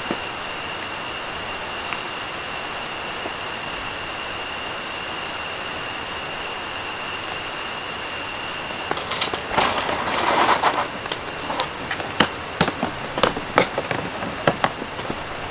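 Steady hiss of heavy rain falling on the tent. About nine seconds in, a hard plastic case is handled on the grass: rustling, then a run of sharp clicks as its metal latches are worked.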